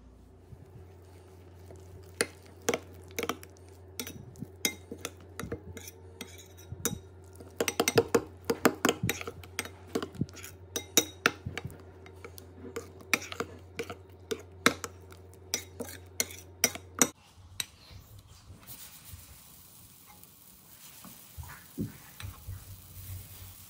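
Metal spoon stirring thick pancake batter in a glass bowl, with quick, irregular clinks and scrapes against the glass. About seventeen seconds in the stirring stops, and soon after comes a steady hiss of batter sizzling on a hot pan.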